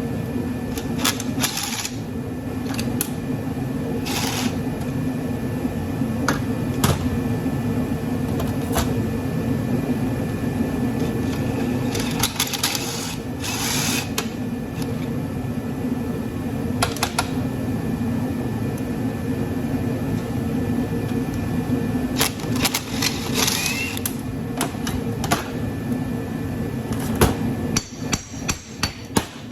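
Hand-held power tool, most likely an impact driver, running in one long steady run with a fast rattle as it works at stubborn bolts on a golf cart charger. It cuts off near the end, followed by a few light clicks.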